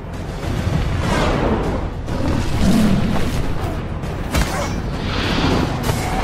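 Film fight-scene soundtrack: music with heavy booms and whooshes, and sharp hits about a second in and again past four seconds.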